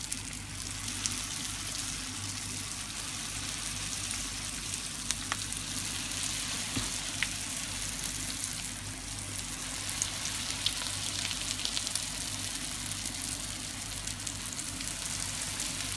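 Wrapped spring rolls deep-frying in hot oil in a pan: a steady sizzle with scattered small pops and crackles.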